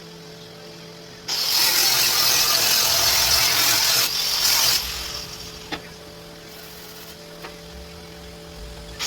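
A loud rushing hiss starts suddenly about a second in, lasts about three and a half seconds and tails off. A single sharp click follows, over a steady electrical hum.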